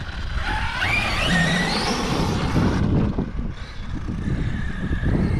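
Arrma Mojave 6S EXB RC truck's electric motor whining as it drives over rough desert dirt, over a steady low rumble. About a second in, the whine wavers and climbs in pitch under acceleration, then drops away before the three-second mark.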